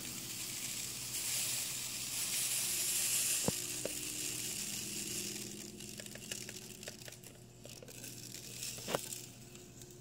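Tire balancing beads pouring into a cup on a kitchen scale: a steady grainy hiss, strongest for the first few seconds and thinning out after about five seconds, with a few light clicks.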